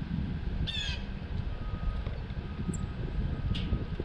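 Blue jay giving one short, harsh jeer call about a second in, over a steady low background rumble.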